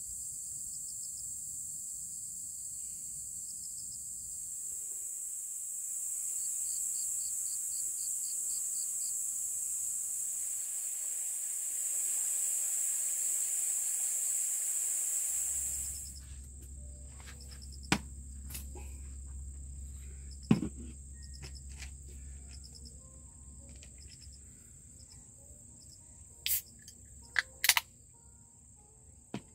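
Dense, high-pitched chorus of insects such as crickets, with short pulsed trills over it. About halfway through it gives way to a single steady high insect tone over a low rumble, with a few sharp clicks and taps near the end.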